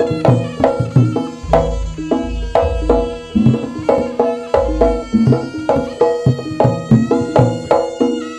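Traditional jaranan accompaniment played live: hand drums and struck, ringing gong-chime notes at a steady beat of about three a second, with deep gong strokes booming twice.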